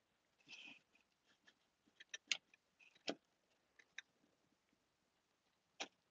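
Faint, scattered small clicks and taps as an HO scale Micro-Engineering turnout is shoved into place, its rail joiners sliding onto the rail ends. There is a soft rustle near the start and about half a dozen sharp little clicks, unevenly spaced.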